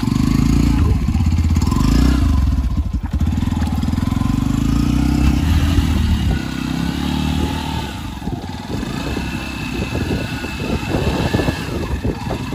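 Yamaha FZ-S single-cylinder motorcycle engine revving up and down as the bike is stuck in deep wet mud, its rear wheel spinning without grip while it is pushed. The revs rise and fall several times, turning rougher and more uneven about halfway through.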